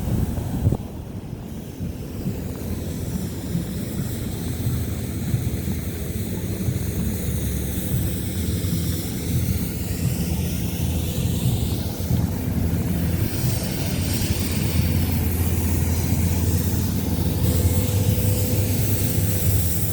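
Low, steady rumble of passing vehicle traffic with a swooshing sweep in the hiss as vehicles go by, the rumble growing louder in the second half.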